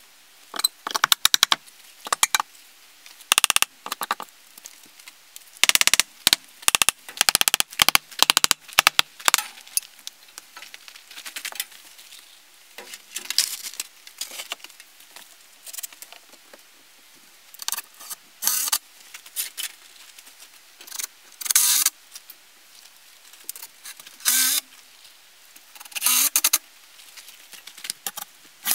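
Sharp clicks and knocks from hand-tool work on a timber-framed wall, coming in irregular quick clusters, with the busiest run about six to nine seconds in.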